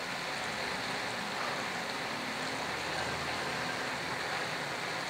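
Boneless chicken cubes in a wet yogurt-and-spice marinade sizzling steadily in oil in a frying pan.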